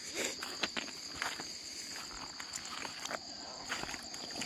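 Steady high-pitched night chorus of insects and frogs after a heavy rainstorm, with scattered clicks of footsteps on wet river stones.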